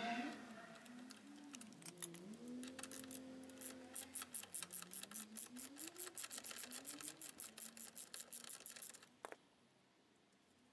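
Socket ratchet clicking in quick runs, several clicks a second, as it works a muffler mounting bolt on a Yamaha XMAX 250 scooter's exhaust; the clicking stops a little before the end.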